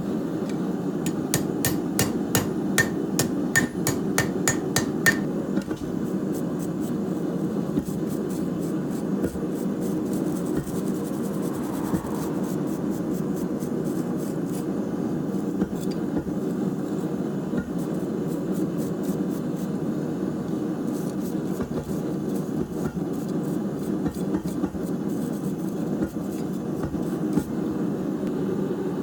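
Hand hammer striking steel on an anvil while forging a corkscrew. Sharp blows come about three a second for roughly the first five seconds, then give way to lighter, quicker taps, over a steady low rushing noise.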